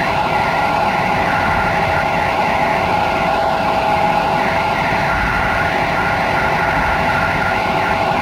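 Passenger train running at speed on a main line, heard from inside its rear carriage: a steady rumble with a steady tone over it.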